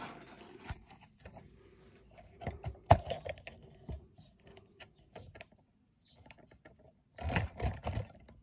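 Handling noise: scattered clicks and knocks as the camera is grabbed and repositioned, with one sharp knock about three seconds in and a cluster of heavier bumps near the end.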